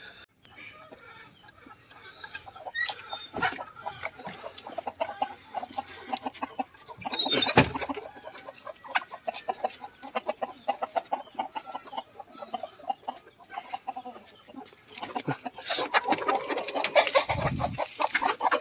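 Native country chickens clucking continually in a coop, with a sharp knock about seven and a half seconds in and the clucking growing busier near the end.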